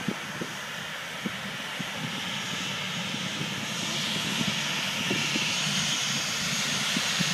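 Jet engines of a Japan Airlines twin-jet airliner running as it rolls along the runway, a rushing hiss that swells louder about four seconds in. A few soft knocks in the first two seconds.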